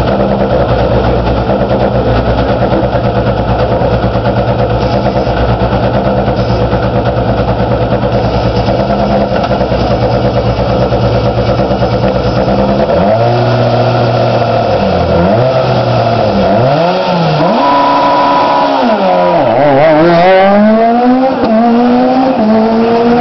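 A Peugeot 207 S2000 rally car's naturally aspirated four-cylinder engine idling steadily. About halfway in, a rally car's engine begins revving up and down in repeated swings, then climbs in rising sweeps as it accelerates.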